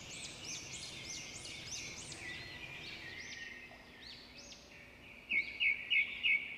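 Small birds chirping, with many short high calls overlapping. Near the end comes a louder run of sharp notes, about four a second.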